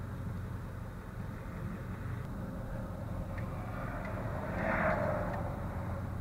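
Converted ambulance RV driving: steady engine and road rumble heard from inside the cab, with a brief louder swell about five seconds in.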